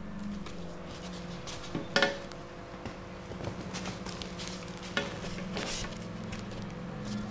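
Scraping, rustling and knocks from a styrofoam shipping box being opened by hand, its foam lid lifted off, with a sharp knock about two seconds in and another about five seconds in. A steady low hum runs underneath.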